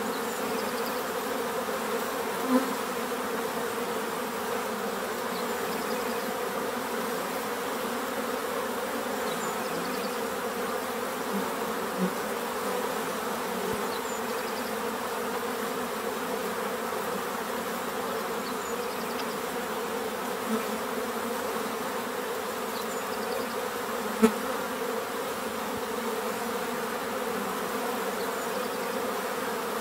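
A steady, unchanging buzzing drone, insect-like in character, with a few brief ticks scattered through it, the sharpest about two-thirds of the way in.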